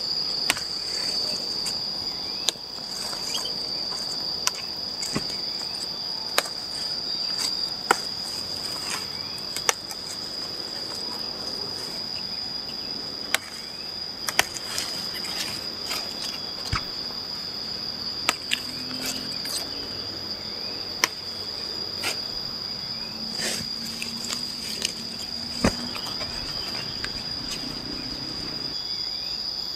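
Insects trilling on one steady high note, with scattered sharp snaps and leaf rustling as Japanese papaya (chaya) stems are broken off and handled.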